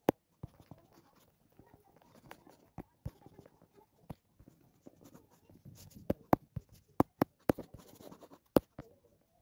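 Irregular sharp clicks and soft scratchy rubbing from a fingertip tapping and dragging across a phone touchscreen while brushing, with the clicks bunching up more thickly near the end.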